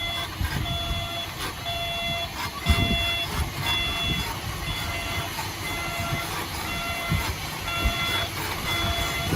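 Reversing alarm on a heavy earthmoving machine beeping steadily about once a second as it backs up, over the low rumble of its engine, with a thump about three seconds in.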